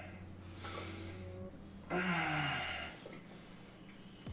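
A man's strained, breathy exhale with a groan of effort while lifting dumbbells, loudest about two seconds in and lasting about a second, with a fainter breath before it.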